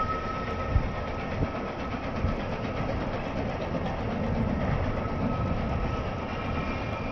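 Chizu Express HOT7000-series diesel railcar running as it moves along the platform, a steady engine and rail rumble. A steady high whine fades away over the first couple of seconds.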